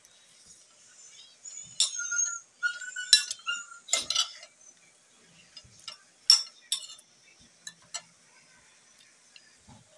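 Metal spoon and fork clinking and scraping against a plate while eating rice and string beans: a cluster of sharp clinks and scrapes with a brief squeak, then a few more clinks a couple of seconds later.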